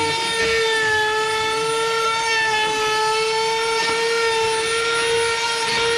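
Milwaukee M18 FUEL brushless cordless trim router running at speed with a steady high whine while trimming the edge of a board.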